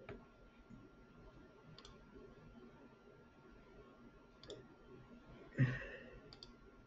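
Faint computer mouse clicks, single clicks a second or more apart, with one brief louder sound about two-thirds of the way through.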